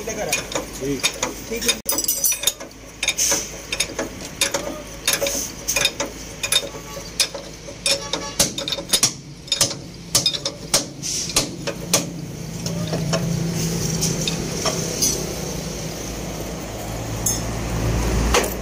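Steel ring spanner clinking and knocking against a truck's leaf-spring shackle nut and hanger as the nut is worked, a run of irregular sharp metallic clinks. Over the last several seconds a vehicle engine's low hum comes in and grows louder.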